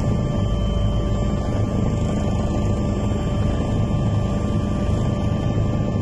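Helicopter engine and rotor running steadily in flight, heard on board as an even drone with a thin steady whine above it.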